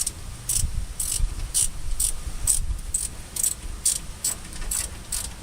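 Socket ratchet wrench clicking in short, uneven bursts, about two a second, as a loosened nut is backed off.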